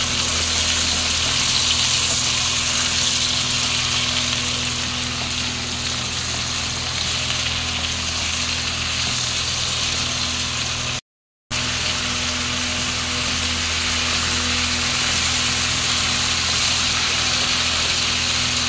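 Beetroot and potato pieces sizzling steadily in hot oil in a kadai as they are stirred, with a faint steady low hum underneath. The sizzle cuts out for a moment about eleven seconds in.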